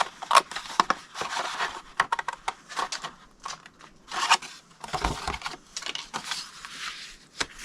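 Scissors snipping through scored cardstock in short cuts, with paper rustling as the cut pieces are handled and pulled away.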